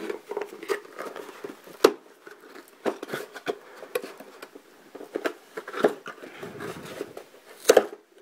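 Hands prying open the glued flaps of a cardboard toy box: a run of small clicks, scrapes and cardboard crackles, with two sharper snaps, about two seconds in and near the end.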